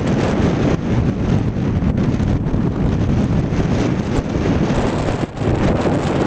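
Strong wind buffeting the microphone: a loud, steady low rumble with a brief lull a little after five seconds.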